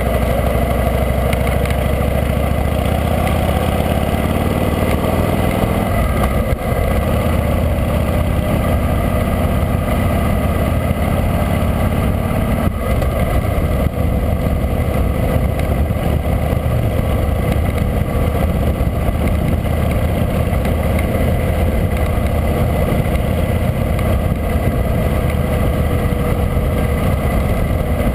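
Harley-Davidson motorcycle's V-twin engine heard from on the moving bike, rising in pitch as it accelerates over the first few seconds, then running steadily at cruising speed, with wind rushing over the camera microphone.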